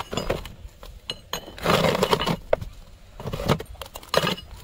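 Scraping, knocking and clattering as a large dum-sealed biryani pot is handled and carried. The longest burst of scraping comes about two seconds in, with shorter knocks near the end.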